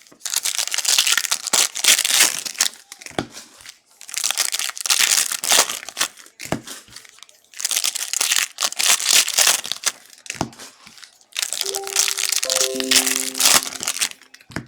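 Plastic trading-card packaging crinkling and tearing as it is ripped open by hand, in four long bouts of about three seconds each. A few short steady tones sound under the last bout.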